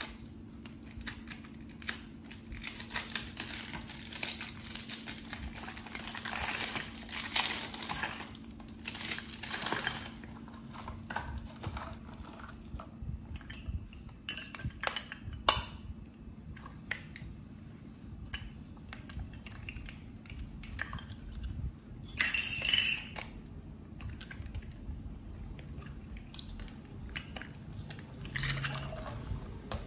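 Irregular clinking and clattering of small hard objects, coming and going in short bursts, over a steady low hum.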